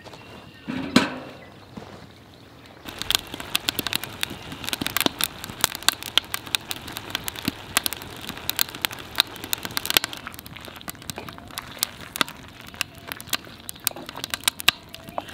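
A split log lands with a thump in a steel fire pit about a second in. From about three seconds on, a wood fire crackles with many sharp, irregular pops under a cast-iron Dutch oven.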